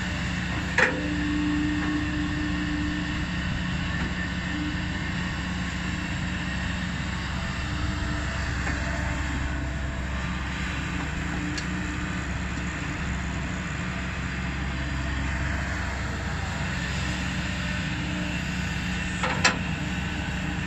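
Kobelco SK200 excavator's diesel engine running steadily, with two sharp knocks, one about a second in and one near the end.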